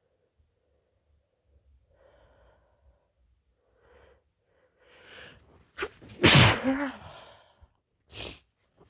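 A woman's sneeze during a sneezing fit: a few faint, catching breaths build up over several seconds, then one loud, voiced sneeze comes about six seconds in. A short, sharp breath follows near the end.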